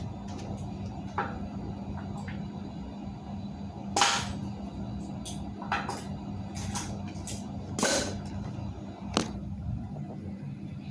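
Several short, sharp knocks and clicks over a steady low hum; the loudest come about four seconds in and about eight seconds in.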